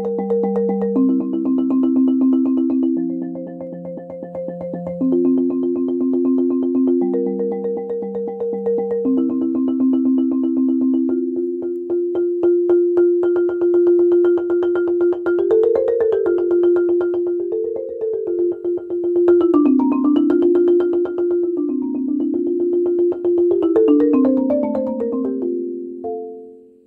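Marimba played with two yarn mallets in fast repeated strokes, holding two-note harmonies that change about every two seconds, then running up and down through the middle of the range. Near the end the last notes die away.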